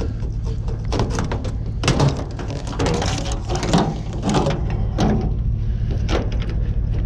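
Irregular clattering, knocks and rustling of scrap being handled and moved, over a steady low rumble.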